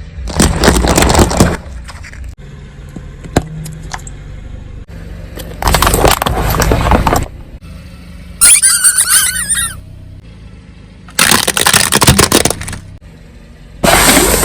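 Objects crushed under a car's tyres: four bursts of crunching and cracking, each about a second and a half long, over a low steady engine hum. A wavering squeak comes about two thirds of the way through.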